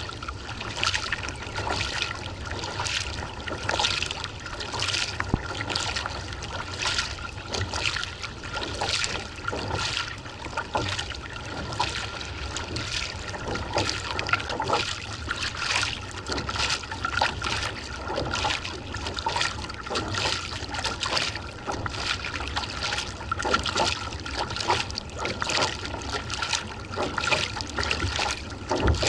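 Kayak paddle strokes, the blades splashing in and out of the water with trickling drips, about one stroke a second. A faint steady high tone runs underneath.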